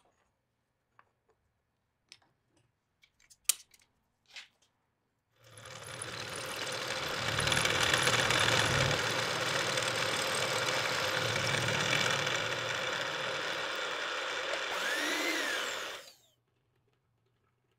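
A few faint clicks, then a milling machine's end mill cutting into an aluminium part for about ten seconds: a steady machining noise with a short rising-and-falling whine near the end, stopping abruptly.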